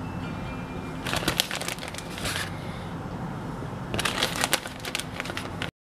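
Crinkling and rustling as shredded mozzarella cheese is handled and scattered over a pizza, in two short spells: about a second in and again at about four seconds. A low steady hum runs underneath.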